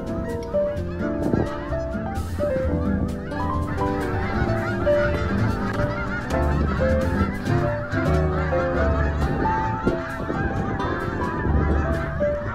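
A large flock of geese honking in flight, dozens of calls overlapping into a continuous clamour.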